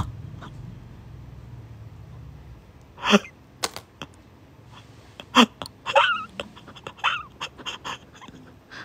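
Photocards being slid and handled, with scattered light clicks, and a few short breathy vocal sounds (gasps and squeaks) from about three seconds in, as a card is revealed.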